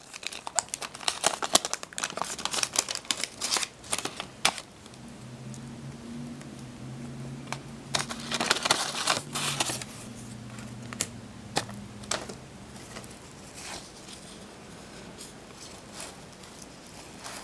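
Waxed-paper trading-card pack wrapper crinkling and tearing as it is pulled open, with a second burst of crinkling in the middle, then quieter ticks of the cards being handled. A low hum runs underneath through the middle.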